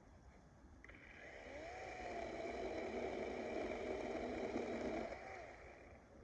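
DeWalt 20V battery chainsaw spinning up, running at full speed for about three seconds, then winding down as the trigger is released.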